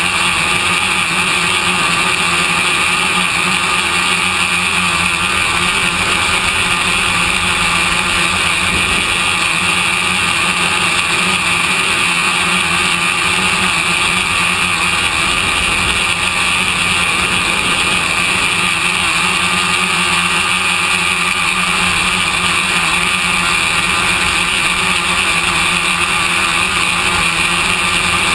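Multirotor drone's brushless motors and propellers running steadily in flight, a constant whine at several fixed pitches over rushing air noise.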